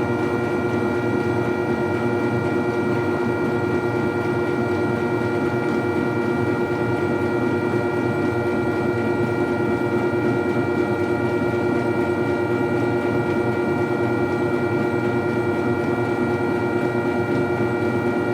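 Treadmill motor running at a steady speed: a constant whine with several fixed tones over the hum of the belt.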